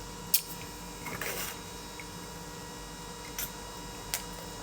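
A few sharp, light clicks and taps, with a short scrape about a second in, over a steady faint electrical hum.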